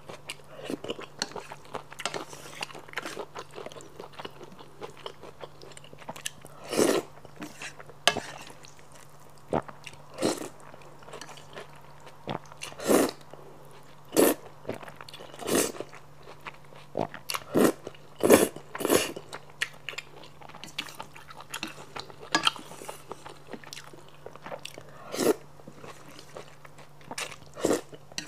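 Close-up eating sounds: noodles slurped in long, wet pulls and chewed, with irregular slurps and bites every second or two. A faint steady low hum runs underneath.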